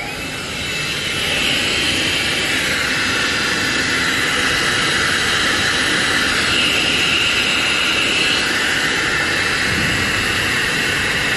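Waste-trim extraction blower on a paper slitter rewinder switched on. Its air rush swells over about a second, then holds a loud, steady noise as it draws off the waste paper trim.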